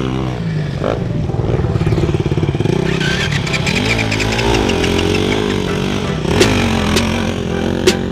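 Dirt bike engines on an enduro track revving, the pitch rising and falling several times as the riders accelerate and back off.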